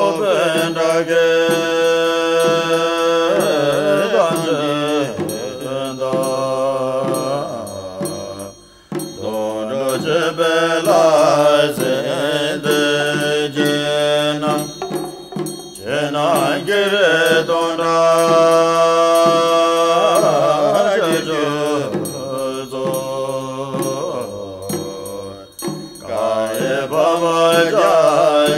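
A Buddhist mantra sung as a melodic chant by a voice, in long drawn-out phrases with brief pauses between them.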